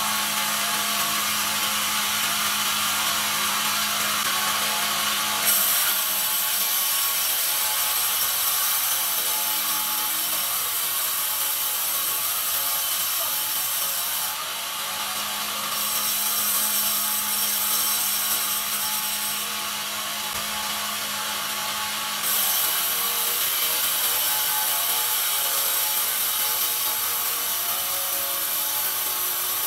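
Benso horizontal bandsaw mill sawing through a pine log: a steady rasping hiss of the blade in the wood over the machine's running hum. The hiss sets in about five seconds in and eases briefly twice in the middle of the cut.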